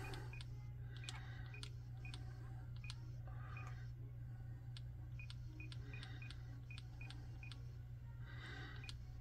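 Icom ID-52 handheld transceiver giving faint, short, high key beeps, each with a click, in an irregular string as letters of a memory-channel name are stepped through and entered. A steady low hum runs underneath.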